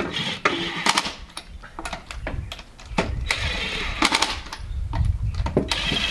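Impact wrench hammering in short bursts, tightening the lug nuts on a refitted wheel.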